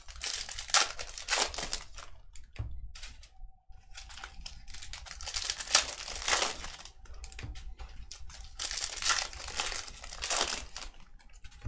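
Trading-card pack wrappers being torn open and crinkled by hand, in irregular bursts of rustling.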